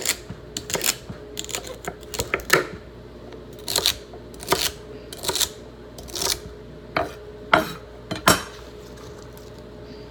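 Kitchen utensils clattering: about a dozen irregular knocks and clinks, stopping about 8.5 s in.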